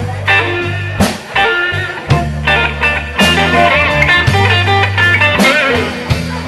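Live blues band playing: electric guitar lines with bent, wavering notes over held bass notes and drums, with cymbal and drum hits.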